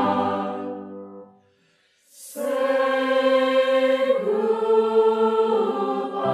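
Slow background music of long held chords. It fades out about a second in, is silent for a moment, then a new chord swells in at about two seconds and moves to another chord near four seconds.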